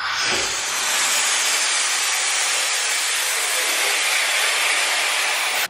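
Helium gas hissing out of a disposable helium tank's nozzle into a balloon as it is filled: a steady hiss that cuts off suddenly near the end.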